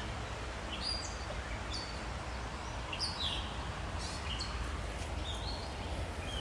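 Songbirds chirping: short, falling high-pitched chirps, a few each second, over a steady low background rumble.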